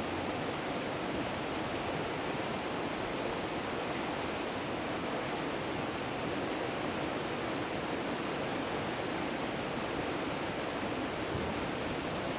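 Fast mountain stream rushing over rocks, a steady, unbroken rush of water.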